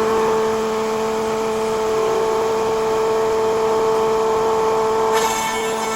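Electric power tool motor running steadily with a constant whine. About five seconds in, a harsher, noisier sound joins the whine.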